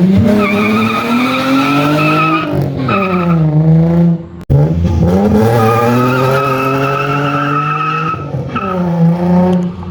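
A car engine revving hard under acceleration, its pitch climbing and then falling twice, with a steady high squeal over it like spinning tyres. The sound breaks off briefly a little before halfway.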